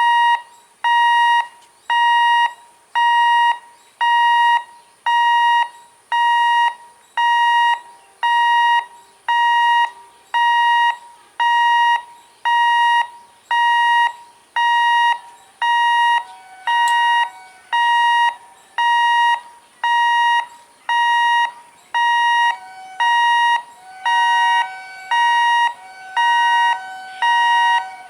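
Level-crossing warning alarm beeping about once a second in a steady, high electronic tone. About halfway through, a second, lower-pitched beep joins out of step with the first.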